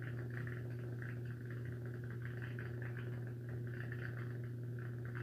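Steady low hum with evenly spaced overtones and a faint, unevenly fluttering higher tone over it: continuous room hum from something running.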